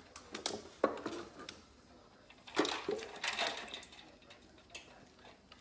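Several light knocks and clatters of hard objects, with scraping between them, a cluster of them about two and a half seconds in.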